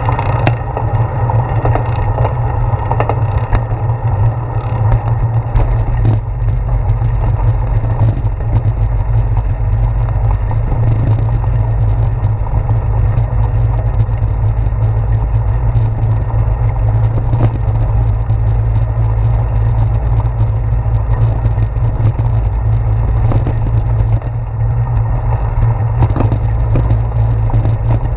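Wind buffeting a handlebar-mounted GoPro Hero 4's microphone while cycling, a steady heavy low rumble, with tyre noise and many small knocks and rattles from bumps in the road.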